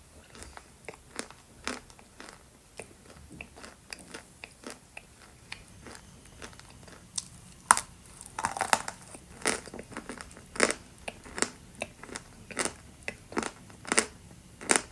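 Dry Chester chalk being bitten and chewed close to the microphone: a string of sharp crunches, about one or two a second. The loudest crack comes about halfway through, followed by a quick run of crunches.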